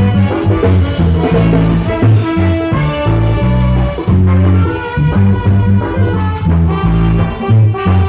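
Live reggae orchestra playing: a heavy bass line over drum kit and hand drums, with a horn section and flute carrying the melody.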